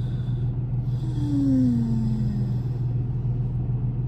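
Steady low hum of a car's engine idling, heard from inside the cabin. About a second in, a woman gives one low, drawn-out hum that falls in pitch, a tired sigh-like moan.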